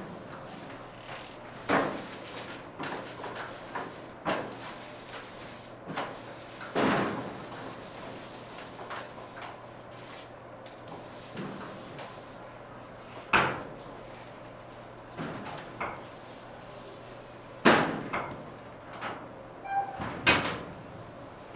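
Irregular knocks, clacks and light rubbing of items being handled and set down on hard surfaces while storage is cleared out, with several louder knocks spread through.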